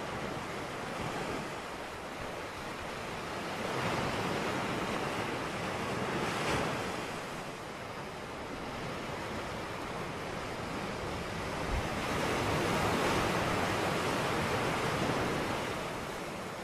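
Steady rushing noise, like surf, that swells and ebbs twice, with no tones or voices in it.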